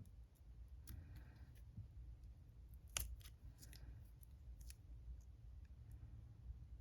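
Quiet handling sounds of watercolour swatching: soft scratches of a brush on paper and a few small clicks of tools, the loudest click about three seconds in.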